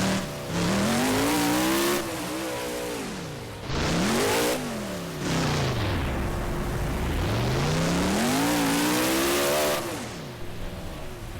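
Monster truck's supercharged V8 engine revving hard, its pitch climbing and dropping about three times as the throttle is opened and closed, with loud exhaust noise at each peak.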